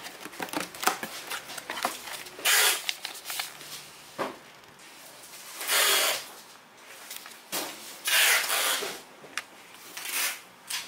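Cardboard box and paper instruction manual being handled: rustling and sliding with a few light knocks, and three louder swishes of paper or cardboard.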